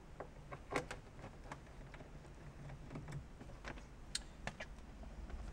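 Scattered light clicks and taps of hands handling a car's plastic interior door trim panel, over a low steady hum.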